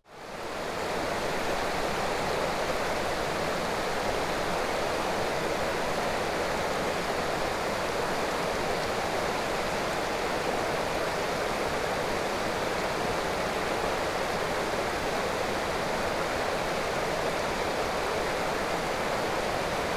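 Small woodland creek spilling over a low waterfall: a steady rushing of water that fades in at the start and holds even throughout.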